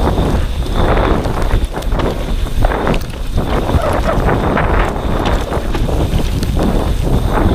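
Wind buffeting the microphone of a camera on a mountain bike descending a dirt forest trail at speed, a rough rushing noise that surges every second or so. Tyre noise and scattered sharp clicks and rattles of the bike over the rough ground run through it.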